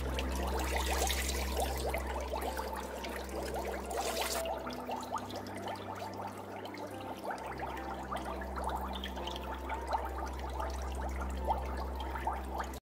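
Bath water splashing and trickling in a tub as hands scoop and work water over a small dog. A louder pouring hiss stops about four and a half seconds in, leaving small splashes and drips over a steady low hum, and the sound cuts off suddenly near the end.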